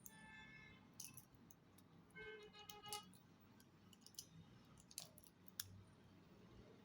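Faint handling sounds: several sharp clicks and taps, with two brief squeaks, one at the start and one about two seconds in.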